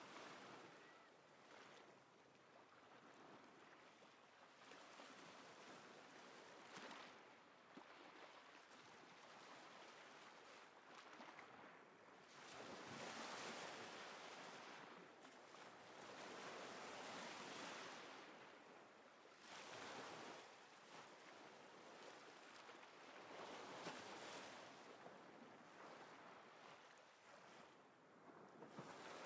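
Faint ocean surf: waves washing in and out, the sound swelling and fading every few seconds.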